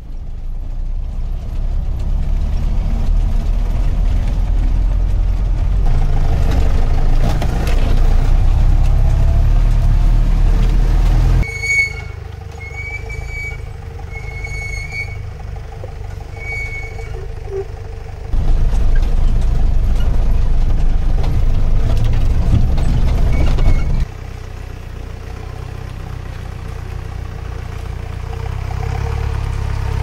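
Jeep engine running as it drives over a rough, muddy forest track, a steady low rumble heard from on board, in several clips that cut abruptly from one to the next. In a quieter stretch in the middle, a few short high chirps sound over the engine.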